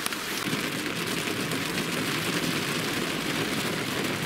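Heavy rain falling on a lorry cab's roof and windscreen, heard from inside the cab as a steady hiss.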